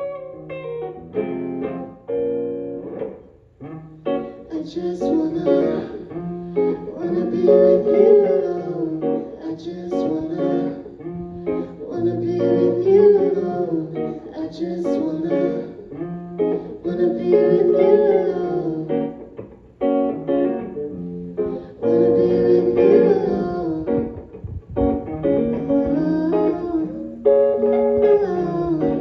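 Live music with guitar playing in phrases of a few seconds.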